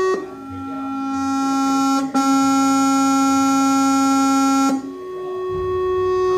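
Electronic doorbell sounding long, steady, buzzy electronic notes, a creepy noise rather than a normal chime. The note drops lower just after the start, breaks off briefly about two seconds in, and returns to the higher pitch about five seconds in.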